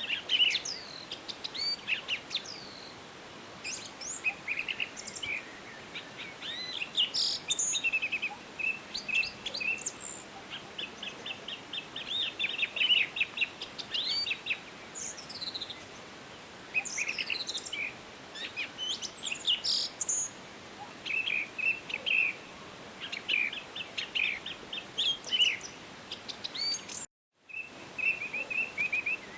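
Several forest birds singing and calling at once: rapid trills of repeated notes, short chirps and whistled notes over a faint steady hiss. The sound cuts out completely for a split second near the end.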